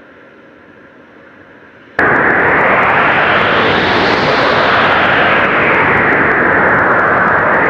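Strong blizzard wind blowing in gusts, a loud rushing noise that swells and eases. It cuts in suddenly about two seconds in, after a faint, quieter stretch.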